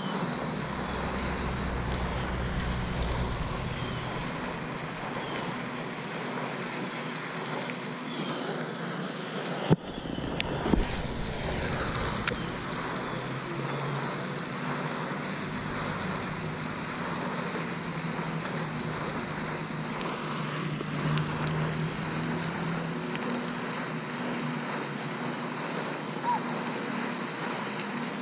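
Steady outdoor wind noise with a faint low hum, and a few sharp clicks about ten to twelve seconds in.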